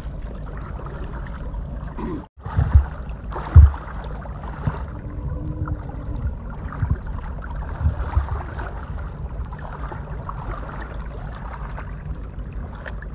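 Water sloshing and swishing around the legs of a person wading through thigh-deep tidal water, over a steady low rumble. Two loud thumps about three seconds in, and smaller knocks later.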